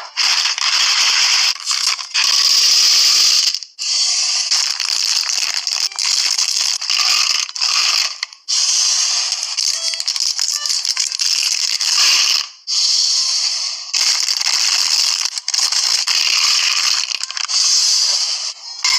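Slime being squeezed and worked by hand, with dense crackling and popping in a run of short clips cut one after another.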